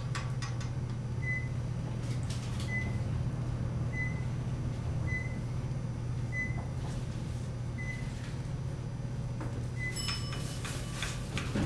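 Hotel elevator climbing with a steady low hum, sounding a short electronic beep as it passes each floor: seven beeps about a second and a bit apart. A higher chime sounds near the end as it reaches its floor.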